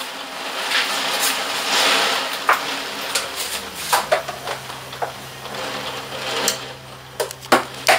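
Loud, dense rattling noise full of sharp clicks, which starts and cuts off abruptly. A steady low hum comes in about three and a half seconds in.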